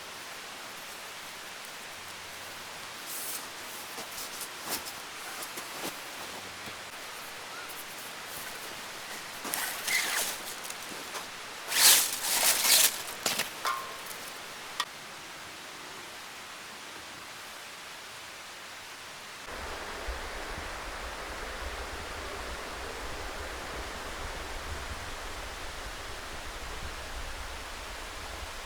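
Steady outdoor hiss with scattered short rustles and clicks of handling, the loudest cluster about twelve seconds in. About twenty seconds in, a low rumbling noise sets in and continues.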